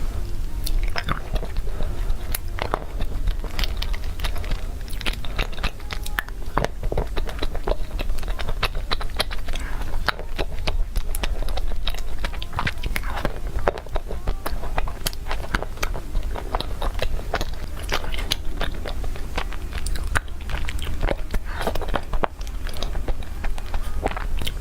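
Close-up mouth sounds of someone biting into and chewing Korean-style cake: irregular wet clicks and soft crunches throughout, over a steady low hum.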